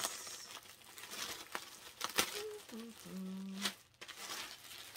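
Clear plastic polybag crinkling and crackling as a pair of sweatpants is handled and pulled out of it, with a sharper crackle about two seconds in. A short hum from a person's voice comes about three seconds in.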